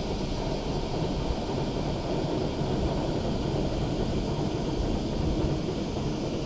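Wind buffeting the microphone outdoors: a steady low rumbling hiss with no distinct events.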